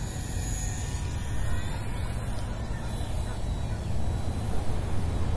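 Gusty wind buffeting the microphone with a low, uneven rumble. Under it is the faint, thin whine of a ParkZone Ultra Micro P-51 model plane's small electric motor as the plane makes a low flyby.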